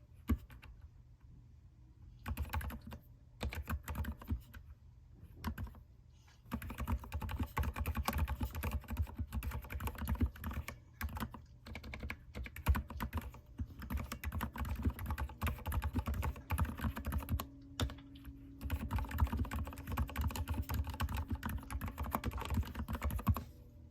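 Typing on a mechanical keyboard: fast, dense runs of key clicks, broken by short pauses about a second in and again around five seconds in.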